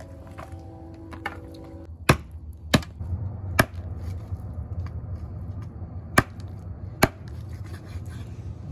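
A cleaver chops raw chicken on a thick round wooden chopping block: five heavy, sharp strikes at uneven intervals. The first strike comes about two seconds in, and three land close together before a pause.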